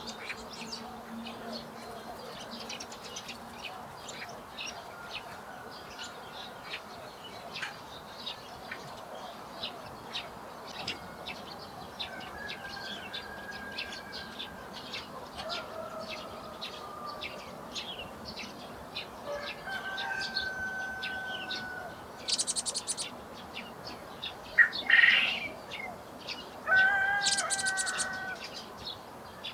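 Small songbirds chirping and calling continuously, with a few louder, nearer calls in the last several seconds.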